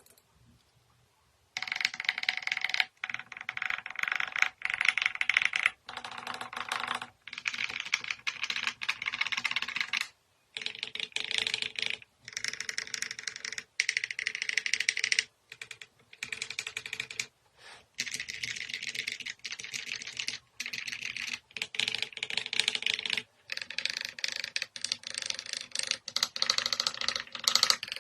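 Fast typing on lubed, foam-dampened mechanical keyboards with PBT keycaps, in runs of a second or two broken by brief pauses. The tone of the key clacks changes after a pause about ten seconds in.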